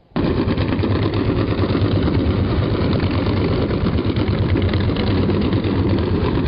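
Underwater recording of commercial ship traffic: a steady low rumble with a deep hum, starting abruptly just after the start.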